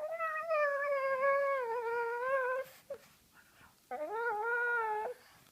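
Pug dog giving two long, drawn-out whining calls with a slightly falling pitch. The first lasts about three seconds; the second, shorter one follows after a brief pause.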